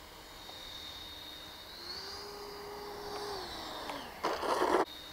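Twin 64 mm electric ducted fans of an RC jet whining in flight. The pitch rises about two seconds in, holds, and sinks again about a second and a half later as the throttle is moved. A loud half-second rush of noise comes near the end.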